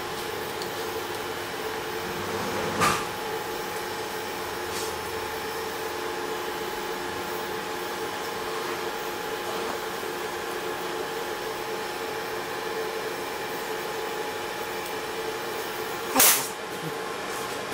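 Steady machine hum over a hiss, broken twice by a short, loud burst of noise.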